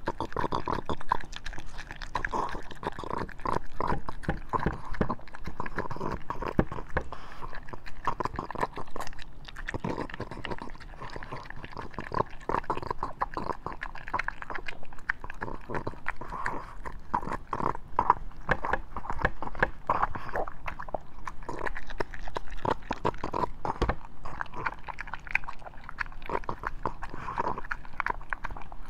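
A French bulldog eating raw ground meat from a bowl: continuous chewing with many quick, irregular clicks.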